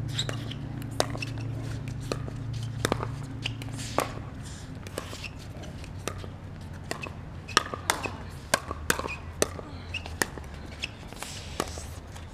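Pickleball paddles striking a hard plastic ball in a doubles rally: a string of sharp, irregularly spaced pops.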